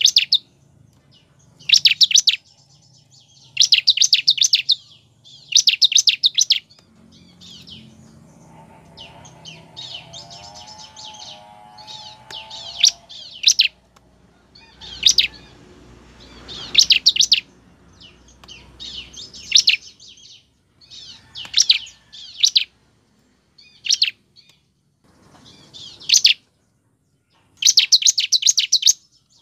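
Bar-winged prinia (ciblek) calling: loud, roughly one-second bursts of rapid, high-pitched chirping notes, repeated every couple of seconds with a few short pauses.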